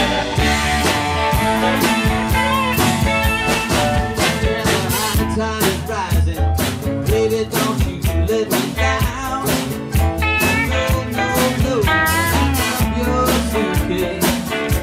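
Live blues-rock band playing an instrumental passage: electric and acoustic guitars over bass and drum kit, with a lead line of bending, sliding notes.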